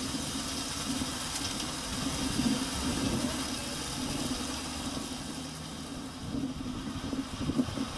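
An engine running steadily, with an uneven, pulsing stretch near the end.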